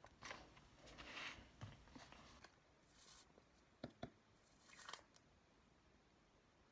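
Faint rustling and crinkling of paper strips being handled and pressed onto a paper puppet, with two sharp clicks about four seconds in as a glue stick is handled.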